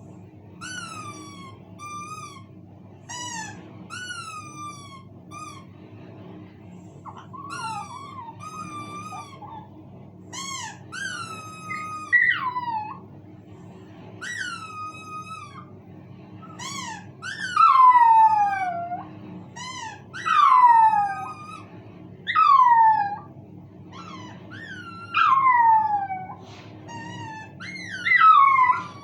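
A squeaky toy squeaking and a miniature pinscher howling along to it. The calls are short at first, then grow longer and louder in the second half, each howl sliding down in pitch.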